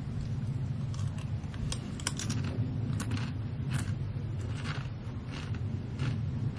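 A person eating crunchy snack chips: short, scattered crunches and crinkles every half second or so, over a steady low hum.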